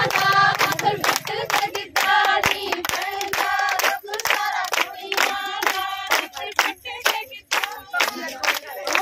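Group of women singing Punjabi boliyan together in giddha, with steady rhythmic hand clapping throughout.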